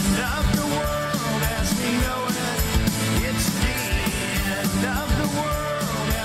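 Rock song with a singing voice and a steady beat, played loud over a rally's sound system as a walk-on tune.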